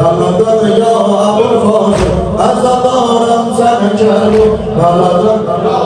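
Male voices chanting a Shia mourning lament together, with long held melodic lines.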